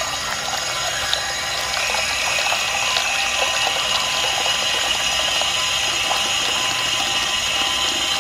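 Tap water running steadily from a held-down push tap and splashing into a small metal bowl.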